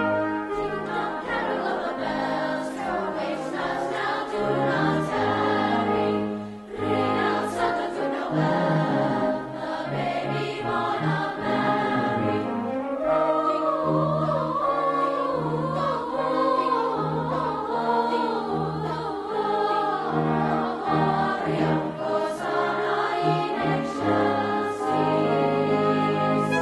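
A choir singing holiday music with instrumental accompaniment, the voices moving over sustained low notes.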